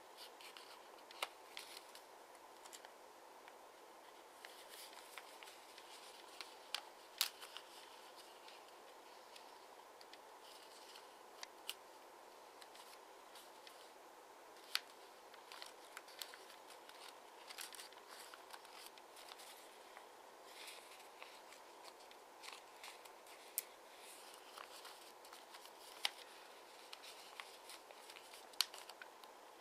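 Origami paper being folded and creased by hand: soft rustling with sharp little paper crackles at irregular moments, over a faint steady hiss.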